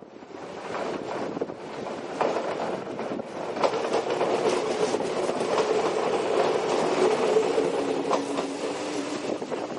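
Yoro Railway 600 series electric train running past, its wheels clacking over rail joints with a faint steady tone above the rolling noise; the sound swells in the first second and then stays loud.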